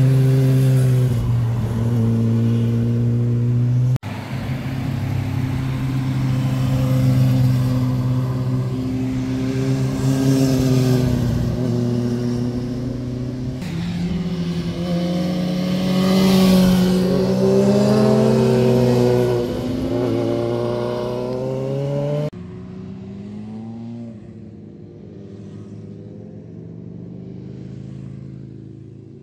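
Sport motorcycle engines passing through a bend, their pitch rising and falling as they accelerate. Two hard cuts between bikes come about 4 s and 13 s in. The sound drops suddenly to a much fainter engine note about three-quarters of the way through.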